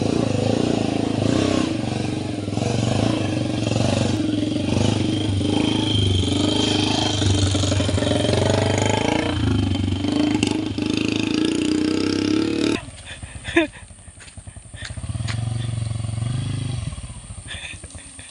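Small motorcycle engine running hard as the bike labours through deep mud, its pitch wavering a little. About thirteen seconds in the sound drops away sharply, and a quieter engine swells up again shortly after.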